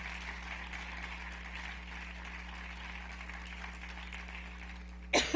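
Audience applauding steadily. A sudden loud sound cuts in at the very end.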